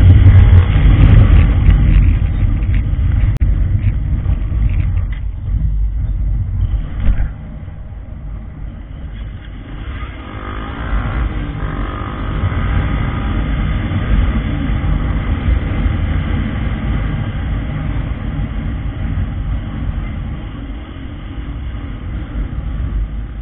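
Honda motorcycle engine running while the bike is ridden along the road. The sound drops sharply about seven seconds in, and the engine carries on more quietly.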